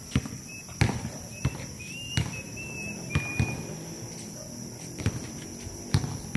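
Night insects keeping up a steady high-pitched drone, with scattered sharp thumps every second or so.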